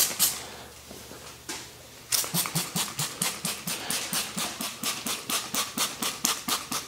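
Trigger spray bottle being squeezed: a few single spritzes, then from about two seconds in a fast, even run of spritzes, about four or five a second.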